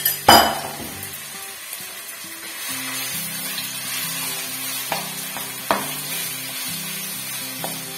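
Marinated chicken pieces sizzling in hot oil in a nonstick wok, with a spatula stirring and knocking against the pan a few times; a loud sharp knock comes just after the start.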